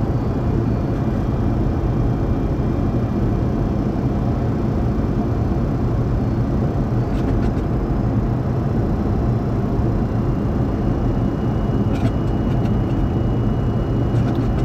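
Steady flight-deck noise inside a Boeing 737-200: its Pratt & Whitney JT8D engines and rushing air. A faint steady tone joins about ten seconds in, with a few light clicks.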